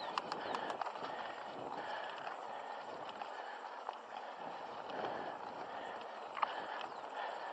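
Mountain bike being ridden on a dirt trail: steady tyre and movement noise with scattered clicks and knocks from the bike, heard through an action camera's microphone.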